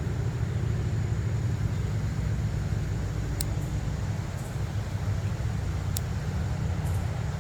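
Steady low rush of flowing creek water heard through a phone's built-in microphone, with a couple of faint ticks about halfway through and near the end.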